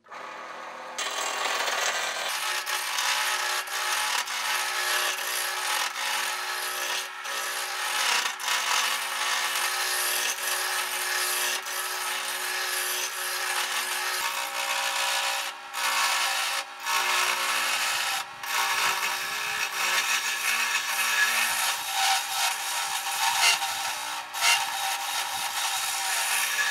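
Electric wood lathe switching on, its motor humming steadily. About a second in, a hand-held turning chisel starts cutting the spinning wooden blank with a continuous rough shaving and scraping. The cutting breaks off briefly a few times as the tool lifts from the wood.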